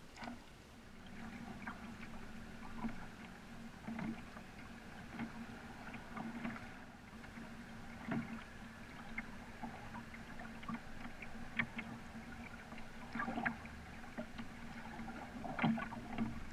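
Double-bladed paddle stroking through the water beside a cedar strip canoe, with irregular small splashes and drips, over a steady low hum.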